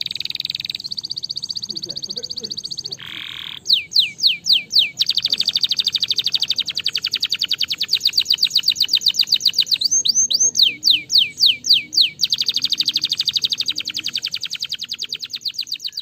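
Domestic canary singing: long rapid trills, broken twice by runs of louder whistles that each sweep down in pitch, about four a second, and a short buzzy note about three seconds in.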